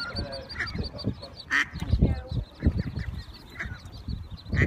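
Mallard hen quacking and ducklings peeping in rapid high notes, over intermittent low rumbling.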